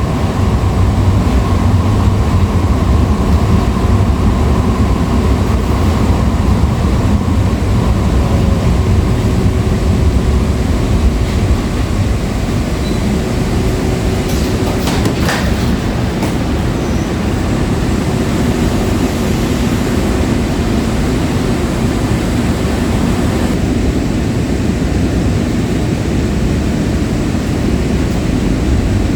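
Breda LRV3 light rail car in motion, heard from on board: a steady low rumble of wheels and running gear with a faint steady whine that fades out a little under halfway through, as the overall sound eases slightly. A few sharp clicks come about halfway through.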